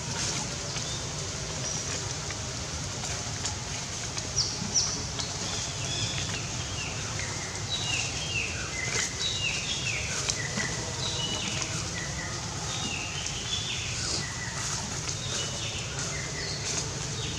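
Birds chirping: many short, high, falling chirps from about four seconds in, over a steady low background rumble.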